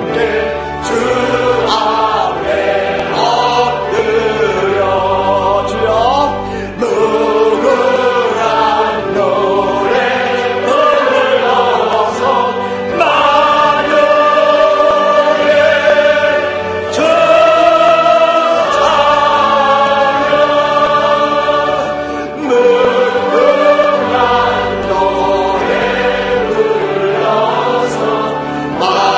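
A church congregation and choir singing a hallelujah praise song together in many voices, with long held notes.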